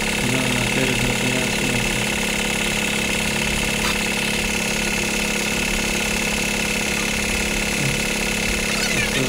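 An engine running steadily at an even speed, with no change in pitch. There is a light metal click about four seconds in.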